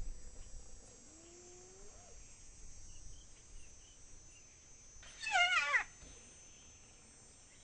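Spotted hyena calling: a faint rising call about a second in, then a short, louder call with a wavering pitch about five seconds in.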